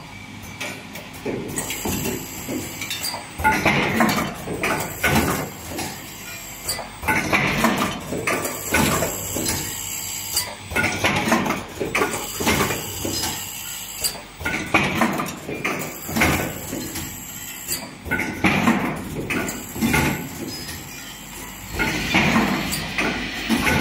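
Automated spin column assembly machine running: repeated bursts of clattering and knocking every second or two as small plastic columns and mechanisms move along its steel chutes, over a steady background with a faint high whine.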